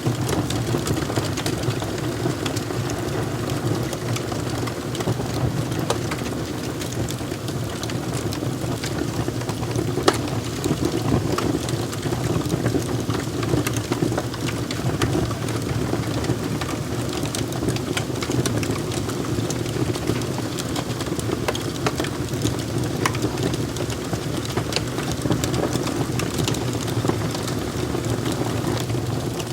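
Wood fire crackling in a fireplace: a steady low roar of burning with scattered sharp pops and snaps throughout, one louder pop about ten seconds in.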